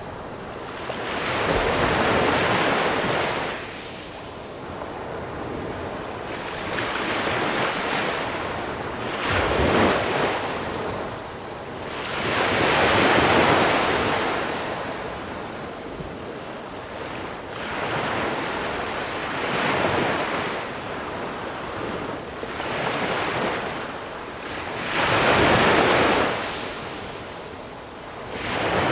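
Sea waves breaking one after another on a beach of small pebbles, a surge every three to five seconds, each followed by water washing over the pebbles.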